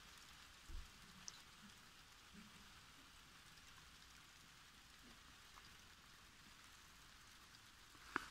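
Faint, steady hiss of light rain falling on wet soil, with a soft thump about a second in.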